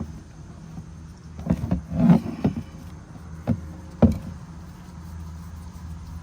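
Several sharp knocks and clicks of oil-filter parts being handled and fitted, in a cluster about a second and a half in and twice more later, loudest near two and four seconds. A steady low hum runs underneath.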